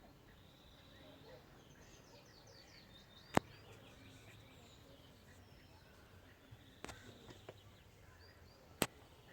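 Two sharp single knocks from a VW Passat B7 with the 1.4 TSI (CAXA) engine before the engine is started, about five seconds apart, with a few fainter clicks between them. This is the unexplained pre-start knock. Birds chirp faintly in the background.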